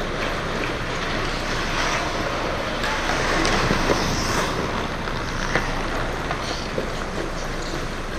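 Ice hockey skates scraping and carving on the ice rink as players skate around the net, a steady hiss, with a few sharp clacks about four, five and a half and seven seconds in.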